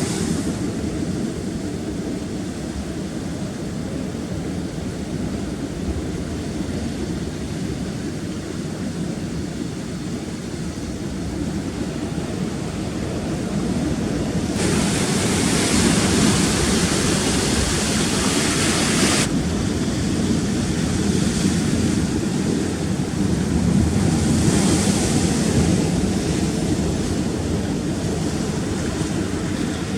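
Rough sea surf on rocks with wind on the microphone: a steady low rumble of waves. A louder hissing wash of surf comes in about halfway through and lasts several seconds, and a weaker one follows a few seconds later.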